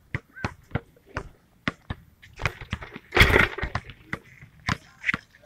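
Handling noise from a phone camera being moved around: a string of sharp knocks and clicks, about two or three a second, with a louder rubbing burst about three seconds in.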